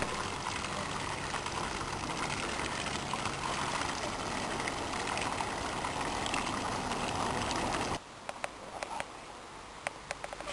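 Water streaming from a fountain's two statues into its basin, a steady splashing. About eight seconds in it cuts to a quieter background with a few light clicks.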